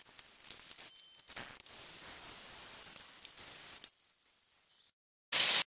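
Faint steady hiss with a few small clicks. Near the end the sound cuts out, followed by a short loud burst of chicken fillets sizzling in hot fat in a frying pan.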